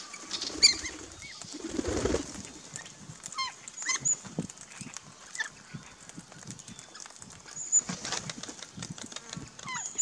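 Wings flapping as a parrot flies in to a backyard feeder, a burst about two seconds in, amid scattered short chirps and squawks from a mixed group of Australian backyard birds.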